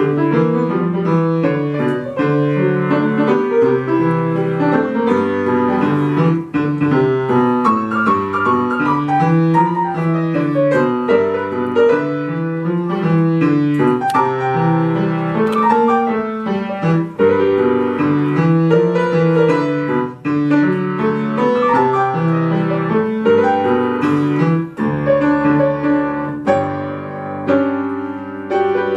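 Upright piano played solo: a lively piece with a repeating bass figure under a running melody.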